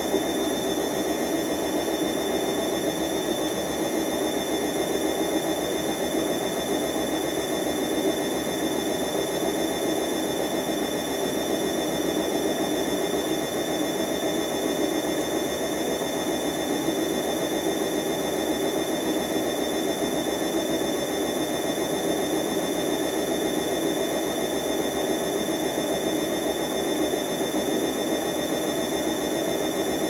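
Bosch WFM4030 washing machine's drum and motor running steadily in the spin between rinses, a high motor whine over the churn of foamy water in the drum. The load is heavily over-sudsed, the condition that makes this machine sudslock and hold back its 800 rpm spin.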